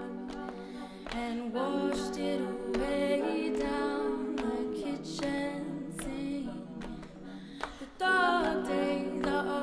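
A cappella group singing held backing chords with no instruments. About eight seconds in the singing jumps louder as a lead voice comes in on top.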